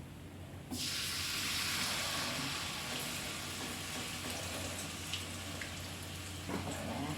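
Hot cooking oil sizzling as battered food goes into the pan: the hiss starts suddenly under a second in, then settles into a steady frying sizzle.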